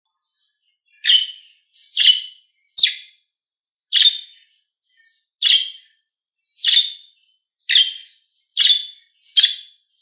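Budgerigar calling: a series of nine short, sharp chirps, roughly one a second, beginning about a second in.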